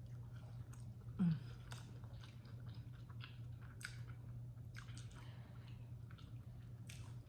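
A person chewing and biting fried chicken close to the microphone, with irregular wet, crunchy clicks over a steady low hum. About a second in, a brief loud vocal sound falls in pitch.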